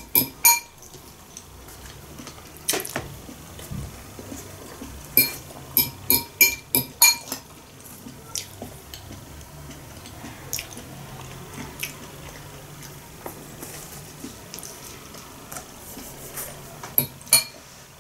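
Metal spoon clinking and scraping against a glass bowl of grated carrot salad, in clusters of sharp clinks with a short glassy ring: at the start, around 3 seconds in, for a couple of seconds around the middle, and again near the end.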